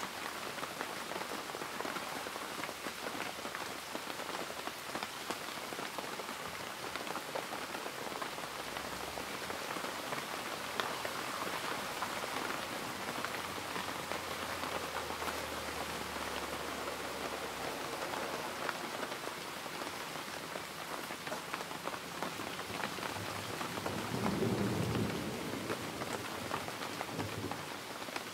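Steady rain falling, with a short low rumble of thunder near the end.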